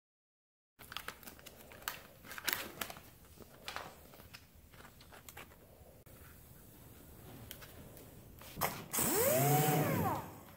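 Clicks and rustling as a sanding disc is fitted onto a dual-action sander's pad. Near the end the sander runs briefly with a hiss, its pitch rising and then falling away.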